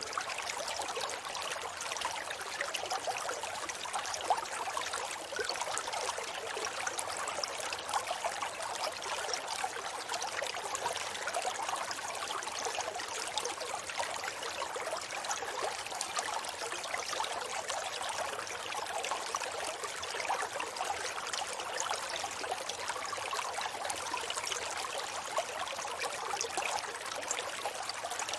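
River water flowing steadily, a continuous rushing babble that is mostly bright and hissy with little deep rumble.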